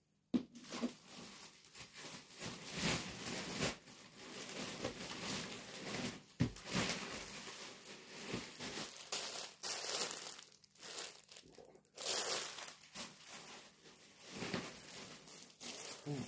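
Plastic clothing packaging crinkling and rustling as it is handled and pulled open, in irregular bursts with a few short pauses.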